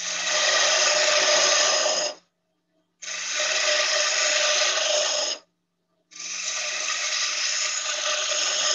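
Spindle gouge cutting a spinning wooden bat blank on a lathe, shaping the rounded knob at its end: three cuts of a steady, rough shaving noise, each about two seconds long, with short silent gaps between them.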